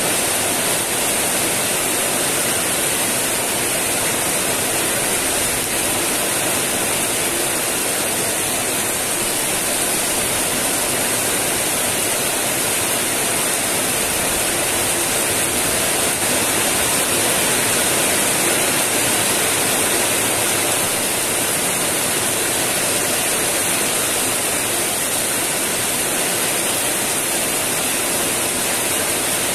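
Heavy rain pouring steadily, a dense, even hiss with no let-up.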